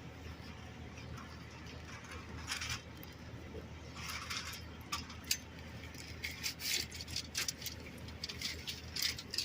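Discarded items being rummaged through by hand, with scattered light clinks and rattles that come thicker in the second half, over a low steady rumble.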